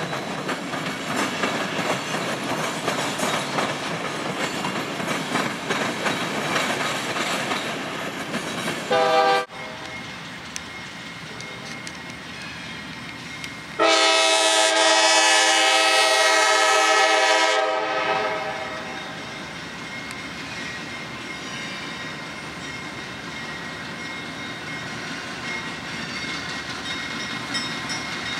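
A freight train rolling past with its wheels and cars clattering, ending in a brief horn toot. Then CSX diesel locomotives approaching sound their air horn in one loud, several-note blast of about four seconds, followed by the steady rumble of the locomotives and train.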